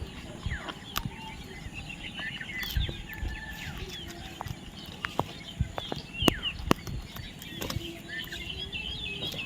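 Parrots chirping and calling in many short, quick chirps, with scattered sharp clicks throughout.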